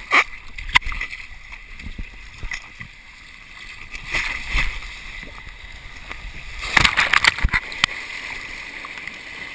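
Water rushing down a fibreglass waterslide as a rider slides through it. Knocks of the body against the slide come near the start, and a louder run of splashing comes about seven seconds in.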